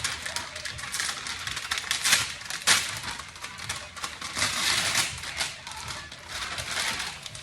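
Crinkling and rustling of the garlic knots' cook-in bags being handled, a dense crackle of small clicks with louder spurts around two seconds in.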